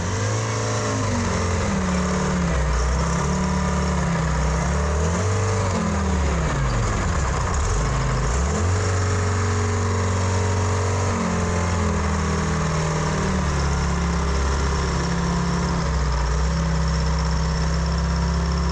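Pettibone PM245 wheel loader's engine running as the loader drives forward and back, its pitch rising and falling with the throttle, dropping low about seven to eight seconds in, then holding steady. The transmission pulls normally, without its earlier oddities.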